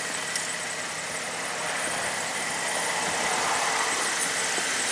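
Holden VF2 Commodore Evoke's V6 engine idling steadily with the bonnet open, very quiet, with a thin steady high whine over the hum.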